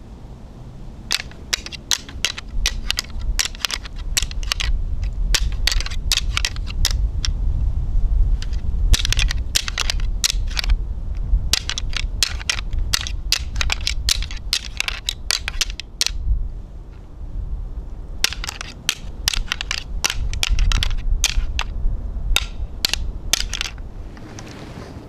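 A pair of deer antlers rattled together, clacking and grinding in three bouts of rapid sharp clicks with short pauses between them. This is rattling to imitate two whitetail bucks sparring. Wind rumbles on the microphone underneath.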